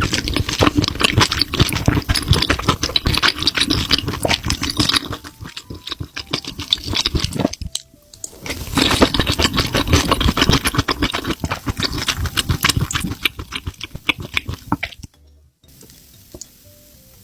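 Close-miked wet, sticky crackling of spicy sauce-coated mushrooms, in two long stretches of about seven seconds each with a short pause between them, stopping a couple of seconds before the end.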